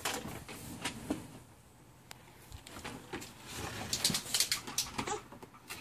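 Light clicks and knocks of a yellow plastic toy dump trailer and toys being handled by a toddler on a wooden deck, with a quick cluster of clatters about four to five seconds in.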